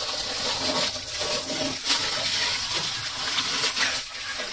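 Water from a garden hose spraying onto a motorcycle in a steady hiss, splashing on its wheels, bodywork and the wet pavement, with a few louder splashes.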